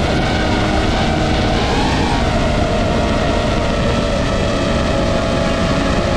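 DJI FPV drone's motors and propellers whining steadily in flight, with a brief rise in pitch about two seconds in as the throttle is pushed, over a dense low rushing noise.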